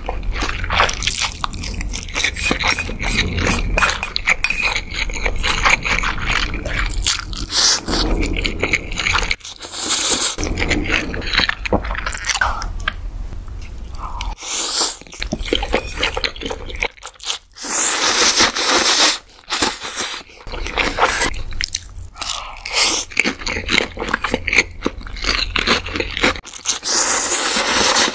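Close-miked ASMR eating of Indomie Mi Goreng fried instant noodles: noodles slurped up off chopsticks several times in long hissing sucks, with moist chewing and crunching bites in between.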